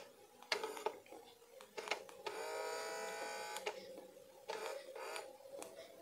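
Light clicks and taps of a toy remote control's plastic housing and circuit board being handled. About two seconds in there is a steady buzz lasting about a second and a half, louder than the clicks.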